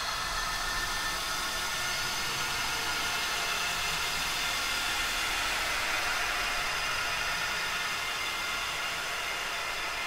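Horror sound effect of ghostly wails of the dead: a steady, dense wash of hiss with many faint held tones layered through it, unbroken and at an even level.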